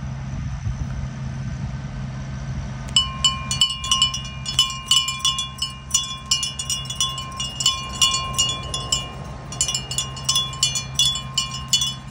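A bell rung rapidly and unevenly, starting about three seconds in, each strike ringing with a clear pitch. Under it runs the steady low rumble of parade tractor engines.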